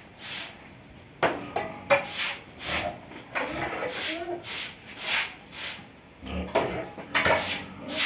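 Broom strokes scraping across a concrete pen floor, a rhythmic swish about one to two times a second.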